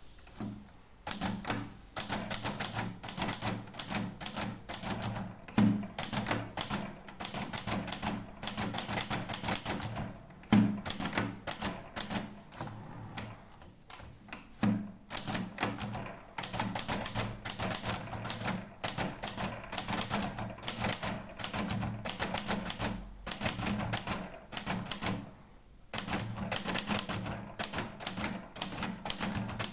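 Adler Tippa S manual portable typewriter being typed on: a fast run of key strikes clacking on the platen, broken by a few short pauses, with several heavier thuds standing out.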